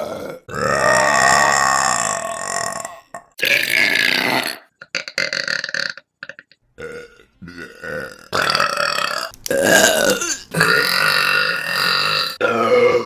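Women burping, a string of separate burps one after another. The first is long and drawn out, a few short faint ones come around the middle, and several more follow close together near the end.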